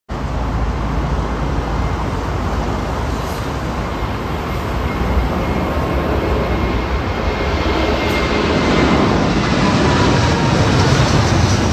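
Boeing 787-8 Dreamliner's jet engines at takeoff thrust during the takeoff roll and liftoff: a loud, steady noise that grows a little louder near the end.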